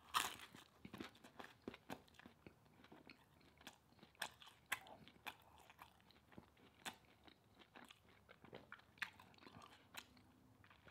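A man chewing food close to the microphone: soft, scattered crunches and mouth clicks, the loudest one at the start.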